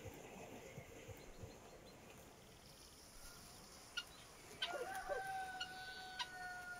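A rooster crowing once, starting about four and a half seconds in: a long call ending on a held, steady note. A few sharp clicks and soft handling sounds come from the food and sheet being worked on the table.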